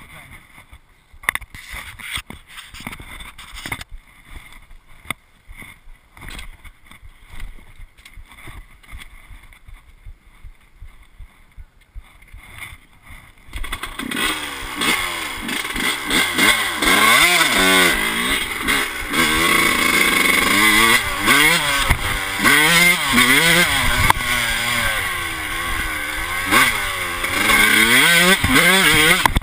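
Light clicks and knocks of handling, then about halfway in a Yamaha YZ125's two-stroke single-cylinder engine starts suddenly and runs loud. It revs up and down as the bike rides off.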